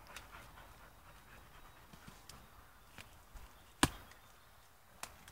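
Two Labradors digging at soil over a buried corrugated iron sheet: faint scraping and scuffing, with one sharp knock about four seconds in and a smaller one near the end.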